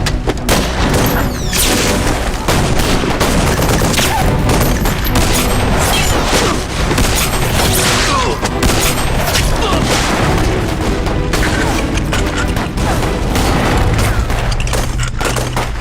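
Battle sound effects: dense, continuous volleys of gunfire with explosions booming throughout.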